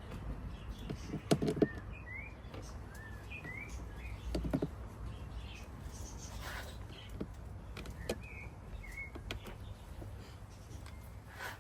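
Small birds chirping in short rising chirps scattered through, over a steady low hum. The loudest sounds are a few sharp knocks and clatters about a second and a half in and again around four and a half seconds, as scooter parts and screws are handled during reassembly.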